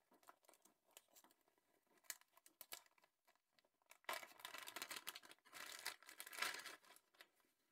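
Faint crinkling of a thin plastic bag as it is opened and handled, after a few faint ticks; the crinkling starts about four seconds in and lasts about three seconds.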